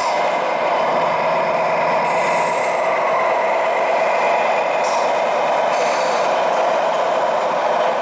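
Steady truck-engine hum from radio-controlled model semi trucks' sound units, playing through small onboard speakers, with a few short high hisses like air-brake releases.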